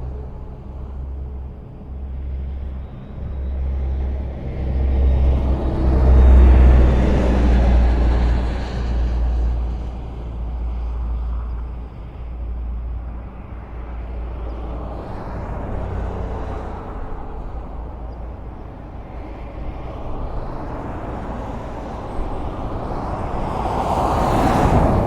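Highway traffic: a continuous low rumble of vehicles passing, growing louder as a heavy vehicle goes by about six to eight seconds in and again as another passes near the end.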